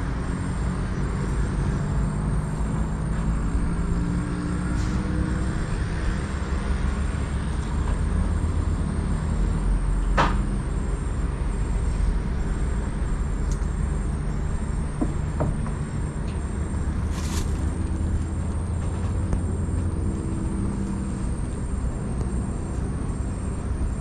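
An engine running steadily, its pitch drifting slowly up and down, with one sharp click about ten seconds in.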